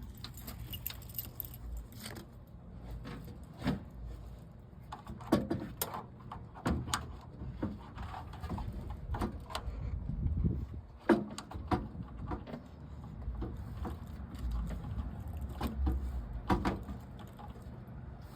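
Irregular clinks, knocks and rattles of a new radiator being handled and set into a car's engine bay, over a low background rumble.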